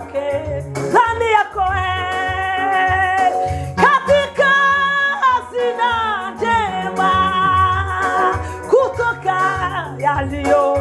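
A woman singing a gospel song, holding long notes and sliding between them, over a backing track with a steady pulsing bass line.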